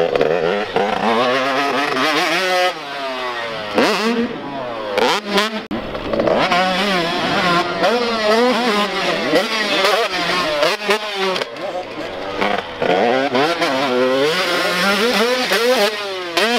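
Super Mini dirt bike engine revving hard and backing off again and again, its pitch climbing and dropping every second or so as the rider rides the jumps on a supercross track.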